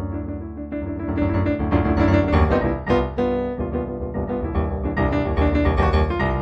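Piano music playing many overlapping notes and chords in a flowing, sustained texture, typical of an improvised piano piece.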